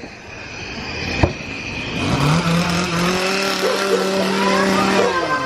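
A chainsaw engine revs up about two seconds in and holds at a steady pitch for about three seconds. A single sharp knock comes about a second in.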